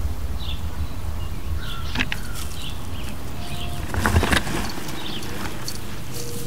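Outdoor ambience: a steady low rumble under short high chirps that repeat about twice a second, with a few light clicks about two seconds in and a brief rustle about four seconds in.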